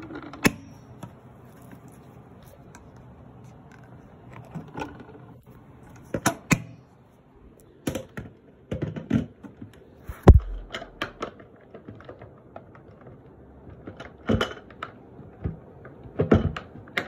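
Scattered clicks, taps and knocks at irregular intervals over a quiet background, the loudest a single thud about ten seconds in.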